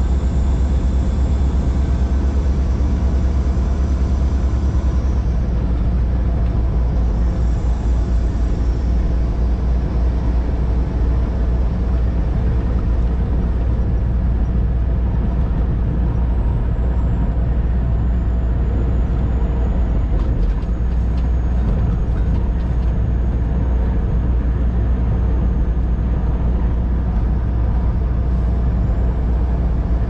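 Semi truck's diesel engine and tyres droning steadily at highway cruising speed while pulling a loaded trailer, heard from inside the cab.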